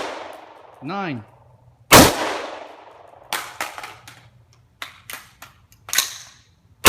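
AR-15 rifle shots: one loud shot about two seconds in and another at the very end, each followed by a short echoing decay. In between comes a run of fainter, sharp clicks and clinks.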